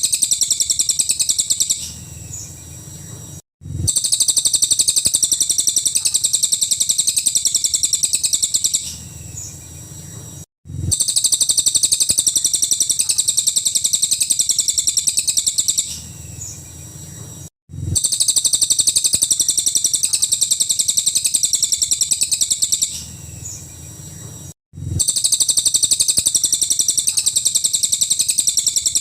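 Cililin bird song in a long, rapid, high-pitched stream of notes fired off in fast succession ("full nembak"). It comes in runs of about five seconds, each broken by a brief quieter pause and a sudden cut, repeating evenly like a looped recording. This is masteran tutor audio meant for other songbirds to learn.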